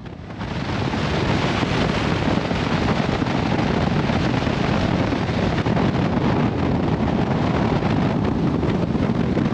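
Steady rush of wind over the camera microphone, with road noise, on a BMW F700GS motorcycle riding at speed along a twisty road. It swells in just after the start.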